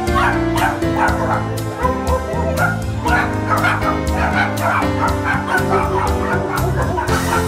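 Dogs in shelter kennels barking and yipping, over background music with a steady beat.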